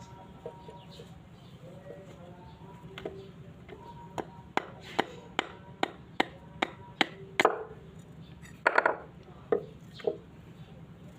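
A series of sharp knocks or taps on a hard object, about two a second, then a few louder, rougher knocks near the end, over a steady low hum.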